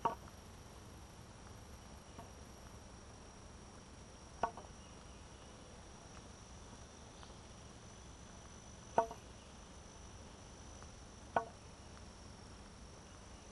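Insects in summer vegetation droning steadily on one high tone, with four sharp knocks a few seconds apart.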